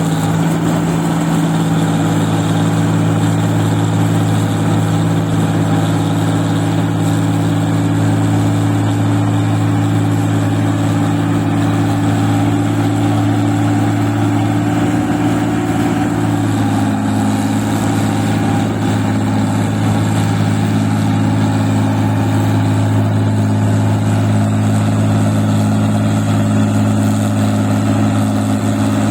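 Engine of a paddy-field machine running steadily under load while working in deep, muddy paddy soil. Its note drops slightly about halfway through and holds at the lower pitch.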